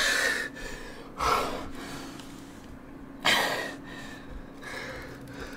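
A young man gasping hard for breath, three loud gasps a second or two apart, over a faint steady hum.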